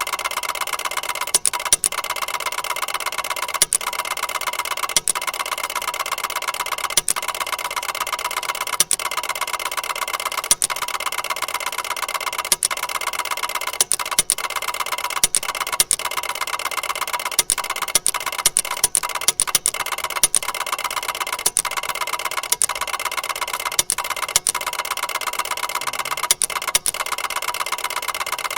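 Ticker tape machine running: a rapid, steady mechanical chatter from its printing mechanism. Sharper clacks break through it at irregular intervals, roughly every second or two, sometimes several in quick succession.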